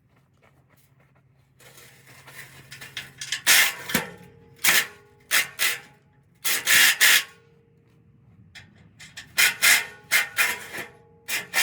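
Repeated scraping and rubbing strokes: faint at first about one and a half seconds in, then a series of loud, short scrapes of about half a second each, with pauses between.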